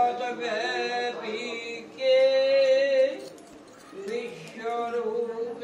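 A voice chanting a devotional hymn in long held notes, three drawn-out phrases with a short break in the middle.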